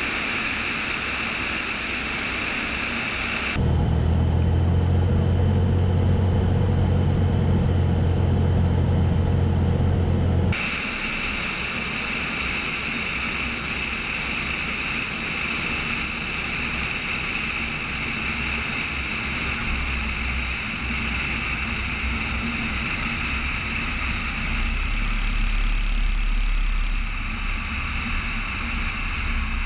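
Steady rush of airflow and engine noise from a Cessna 210 Centurion on short final and landing, heard from a camera mounted under the wing. From about four seconds in, for some seven seconds, a louder, deeper engine drone with a steady low hum takes over, then the rushing returns. Near the end a low rumble grows as the wheels roll on the runway.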